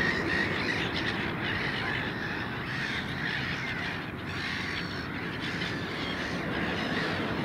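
A large flock of black-headed gulls calling over one another in a continuous din, crowding in to be fed.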